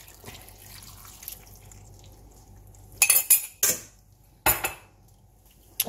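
Chicken stock poured from a small jug into a casserole pot, a faint soft pour, then three sharp clinks of cutlery and crockery about three, three and a half and four and a half seconds in.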